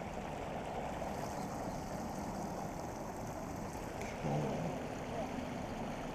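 Water pouring steadily over a small concrete weir into a pool, a constant rushing. A brief low sound rises over it about four seconds in.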